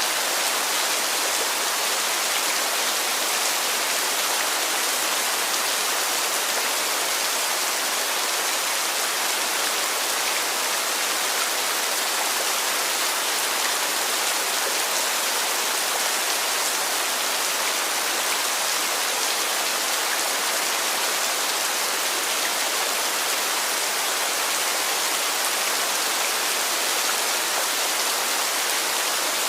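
Heavy rain falling in a steady, even hiss, with no separate drops or other events standing out.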